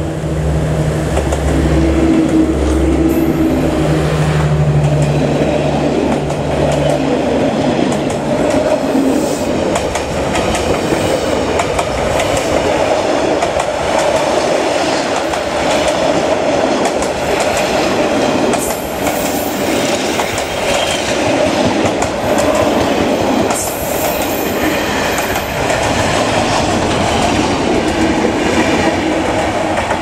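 A D20E diesel locomotive passes close by, its engine running with a steady low hum for the first several seconds. Then its passenger coaches roll past in a continuous rumble, the wheels clacking over the rail joints, with a couple of brief high wheel squeals in the second half.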